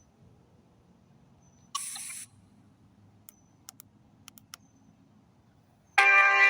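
Near-quiet night air with a faint low hum, broken by a short hiss about two seconds in and a few faint clicks. Near the end, a loud music-like electronic sound of steady layered tones starts abruptly.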